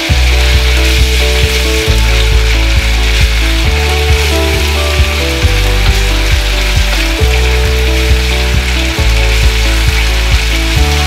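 Minced garlic and shrimp paste (bagoong) sizzling in hot oil in a steel wok as a wooden spatula stirs them. Background music with a steady beat and bass line plays over it.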